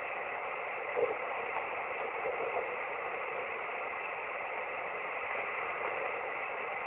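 Single-sideband shortwave radio receiver hiss on the 17-metre amateur band, steady and narrow-band, with a couple of faint short blips about one and two and a half seconds in.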